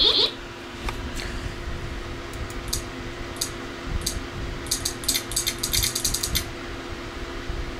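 Sharp clicks from working the controls of an iBook G3 laptop while opening its menus: a few scattered clicks, then a fast run of about a dozen near the middle, over a steady low hum. The last of a series of Mac OS volume-adjustment beeps fades out right at the start.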